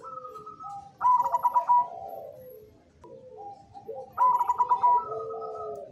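Zebra dove (perkutut cemani) singing its cooing song. It gives two phrases, about a second in and again about four seconds in, each a fast rolling trill followed by lower, softer drawn-out coos.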